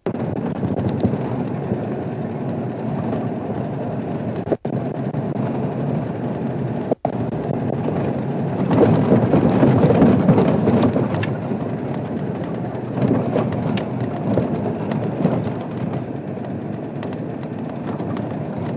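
Safari 4x4 vehicle driving along a rough dirt track: steady engine and running noise, louder for a couple of seconds about nine seconds in. The sound cuts out for an instant twice.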